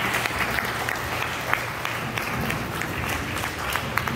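Audience applauding: many hands clapping at once, dense and steady.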